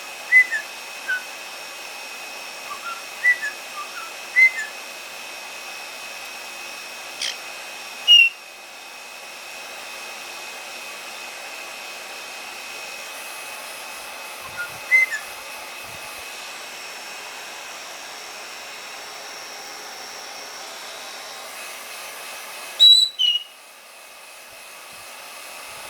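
A hair dryer running steadily with a thin whine. Over it, white-bellied caiques give short chirps and whistles, the loudest a pair of sharp calls about 23 seconds in, and the dryer sound drops away briefly about 8 and 23 seconds in.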